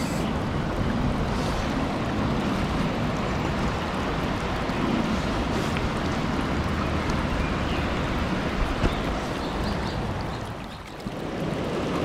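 Steady rush of a mountain stream flowing over a stony bed, with a brief dip in level near the end.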